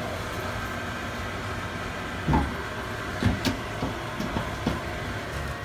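Baking tray sliding into an oven on its metal rack and the oven door being pushed shut: a run of clunks and knocks, the loudest about two seconds in, over a steady hum.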